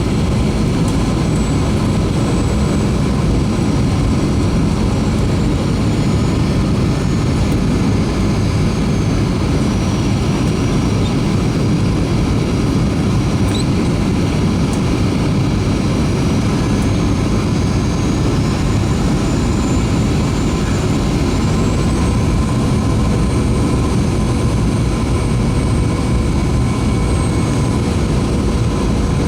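Steady jet cabin roar of a Boeing 737-300 with CFM56-3 engines, running evenly, with a faint high engine whine drifting slowly in pitch.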